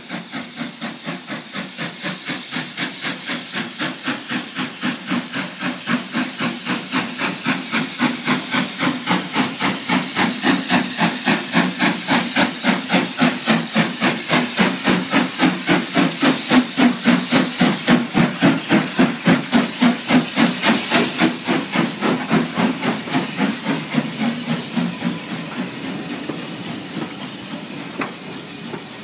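Hunslet Austerity 0-6-0 saddle tank steam locomotive chuffing in an even rhythm with hissing steam as it draws into the platform, loudest as the engine passes around the middle. Near the end the beats fade and the carriages roll by.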